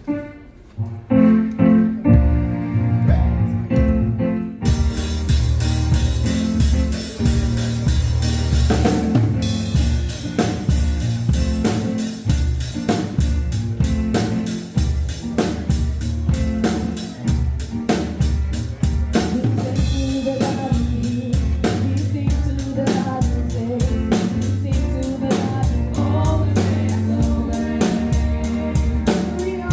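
Gospel music with a drum kit and singing. It opens with pitched instruments alone, and the full band with a steady drum beat comes in about four and a half seconds in.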